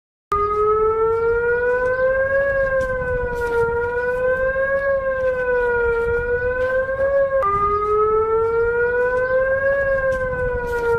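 Emergency alert system alarm siren: a loud wailing tone that starts abruptly and slowly rises and falls in pitch about every two and a half seconds. About seven seconds in it drops suddenly back down in pitch and starts rising again.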